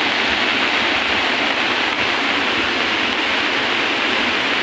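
River swollen into a muddy flood torrent after heavy rainfall, rushing with a steady, even noise of churning water.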